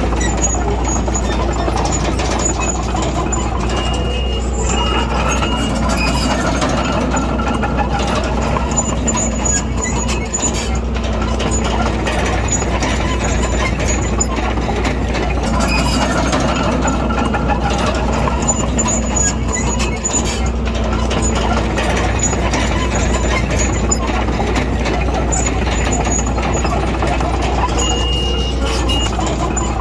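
Diesel engines of a bulldozer and dump trucks running steadily at an earthmoving site, with a dump truck's reversing beeper sounding in a run of evenly spaced beeps about four seconds in and again near the end.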